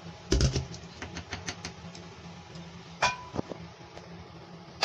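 A silicone spatula tapping and scraping against the rim of a glass bowl: a quick run of small clicks about half a second in, then a single sharper knock with a brief ring about three seconds in.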